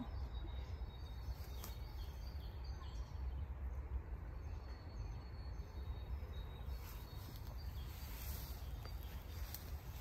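Outdoor woodland ambience: a steady low rumble with faint, distant bird chirps and a few brief high ticks.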